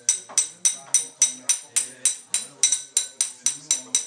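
Music with a steady tambourine beat, about three and a half jingling strikes a second, with voices faint underneath.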